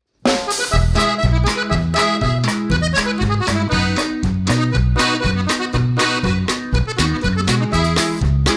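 Background music with a steady beat and a melodic lead over a moving bass line, starting just after the beginning.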